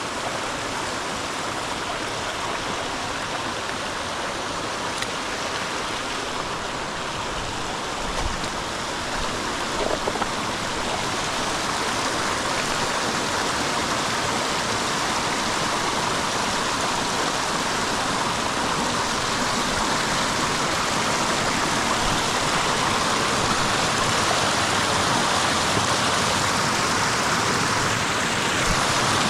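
Creek water flowing over stones, a steady rushing that grows gradually louder through the second half, with a couple of brief low bumps near the middle.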